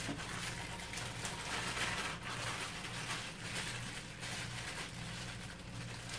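Plastic bag crinkling and wet marinated chicken pieces squelching as they are squeezed out of the bag into a bowl, over a steady low hum.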